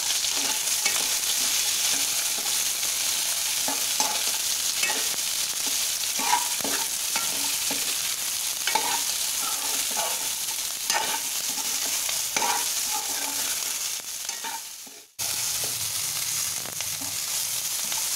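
Chopped onions and green chillies sizzling in hot oil in a steel kadai as they are stirred, the spoon scraping and clinking against the pan at irregular intervals. The sound cuts out for a moment about 15 seconds in, then the sizzling resumes.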